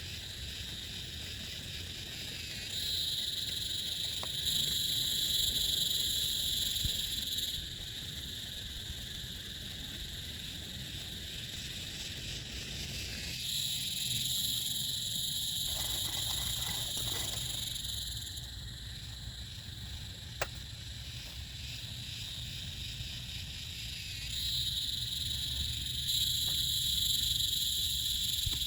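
A chorus of calling insects or frogs: a high, steady buzzing trill that swells up and dies down in three waves of a few seconds each, over a steady low rumble, with one sharp click about twenty seconds in.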